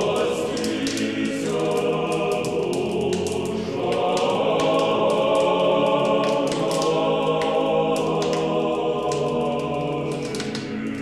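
Choir music: voices singing long sustained chords, growing fuller about four seconds in.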